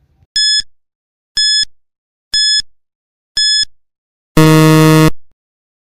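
Quiz countdown timer sound effect: four short high electronic beeps, one a second, then a longer, lower and louder buzzer tone that marks time up.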